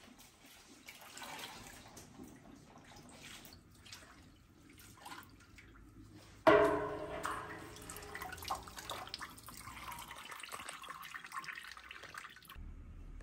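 Plant-dye bath sloshing and dripping in a stainless steel pot as wet yarn skeins are lifted out and worked with a stick. Faint trickling at first, then a sudden loud splash about six and a half seconds in, followed by more sloshing and dripping.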